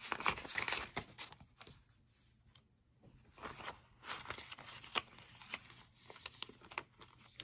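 Paper banknotes rustling and crinkling as they are handled and folded by hand, with a few light clicks and taps among the rustles. The rustling is densest in the first second and picks up again about four seconds in.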